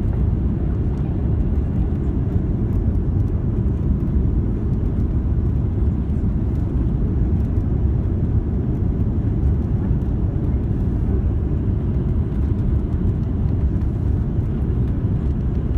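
Steady low rumble of a landed airplane, an even noisy drone with no distinct tones.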